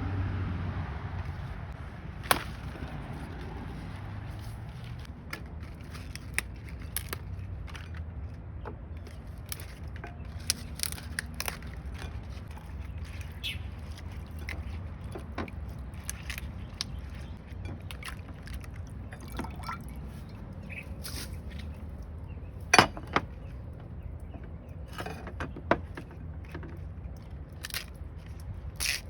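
Kitchen handling sounds: scattered light clicks and knocks over a low steady hum, with a sharp knock about two seconds in and a louder one late on.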